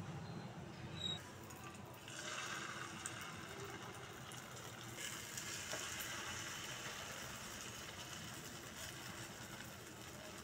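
Hot oil sizzling in a frying pan as spoonfuls of semolina and vegetable batter go in among toasting sesame seeds. The sizzle starts about two seconds in and grows louder around five seconds.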